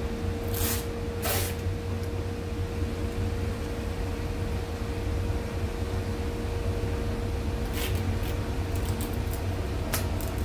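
Green painter's tape being pulled off the roll in short tearing strips, twice about a second in and several times near the end, over a steady low mechanical hum with a faint steady tone.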